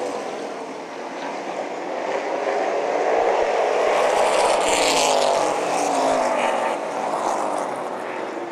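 A pack of Outlaw Super Late Model race cars running at racing speed, their V8 engines overlapping with notes that rise and fall as the cars pass. The sound dips about a second in, swells loudest in the middle, then eases off.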